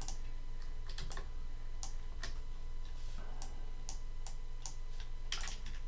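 A dozen or more irregular, sharp clicks of a computer mouse and keyboard as objects are selected and dragged in CAD software, over a steady low hum.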